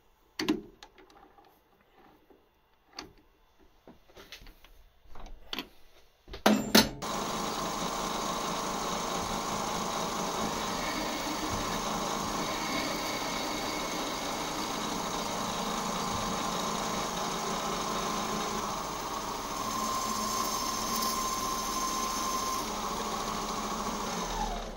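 Metal lathe machining a short steel bar. At first there are scattered clicks and knocks as the bar is set in the three-jaw chuck. About seven seconds in, after a few loud knocks, the lathe starts and runs steadily while turning and then drilling the steel. A steady tone joins for a few seconds near the end, and the lathe winds down with a falling pitch as it stops.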